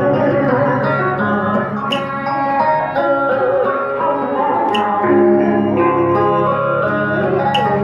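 A woman singing a Vietnamese song into a microphone over a plucked-string accompaniment, with a sharp tap about every three seconds.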